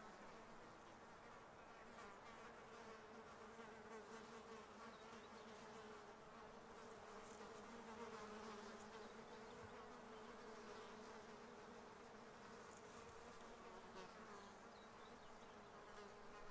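Faint, steady buzzing of a flying insect hovering near the microphone, its hum wavering slightly in pitch, over quiet outdoor hiss.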